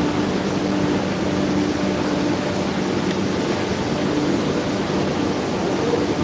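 A steady mechanical drone with a faint low hum running through it.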